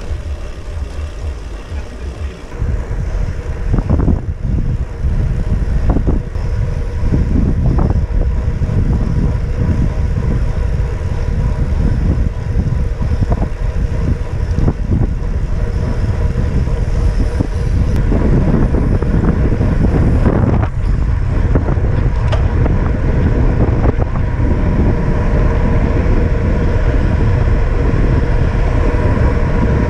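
Wind rumbling heavily on a cyclist's camera microphone while riding a road bike at speed. It gets louder a couple of seconds in, with a few short knocks.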